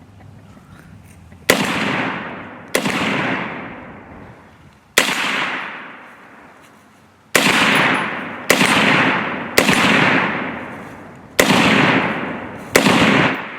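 Rifle shots fired one at a time: eight sharp reports at an uneven pace of roughly one every one to two seconds, each followed by a long echo that rolls away over a second or so.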